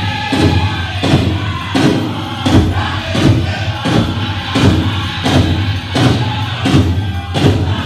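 Powwow drum group singing a chicken dance song over a steady big-drum beat, about one and a half beats a second.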